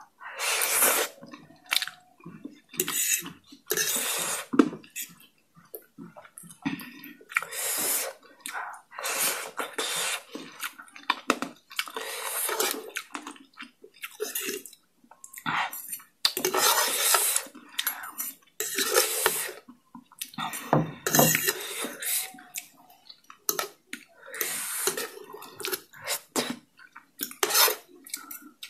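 Close-miked slurping and sucking of spicy instant noodles and sauce in repeated wet bursts of about a second each, with a metal fork scraping and clinking on the plate.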